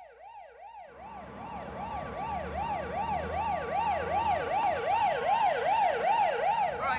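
Siren sound effect opening a song, wailing up and down quickly, about two and a half sweeps a second, and growing louder, with a low rumble coming in about a second in.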